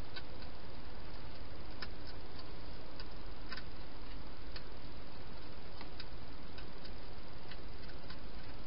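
Wild hedgehog eating at a feeding dish, its chewing heard as irregular small crunching clicks over a steady hiss.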